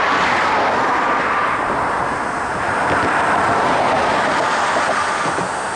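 Steady rushing noise of highway traffic driving past close by, tyres on the road, mixed with wind on the microphone.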